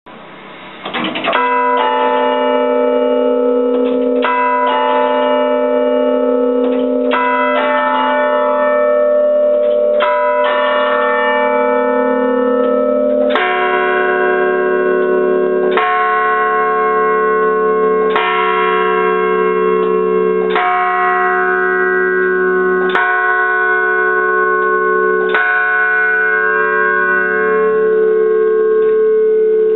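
Swinging bronze church bells rung by their clappers, each stroke ringing on with a long, layered hum. The strokes come unevenly at first. About 13 seconds in the bell tone changes, and the strokes settle into a steady beat about every two and a half seconds.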